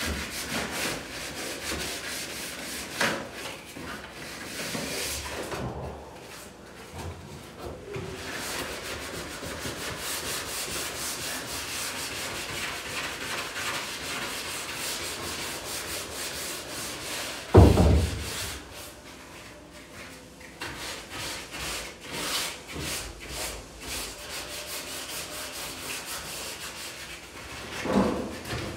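Hand sanding of a wooden closet door frame: rapid, scratchy back-and-forth rubbing strokes, with one loud thump about two-thirds of the way through and a smaller bump near the end.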